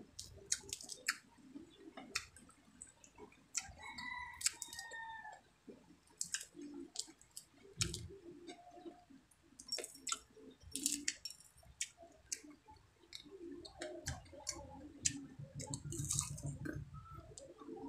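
Close-mic eating sounds: chewing, lip smacks and many sharp clicks as fried dried milkfish and rice are picked apart and eaten by hand. About four seconds in, a brief pitched call sounds in the background, falling slightly.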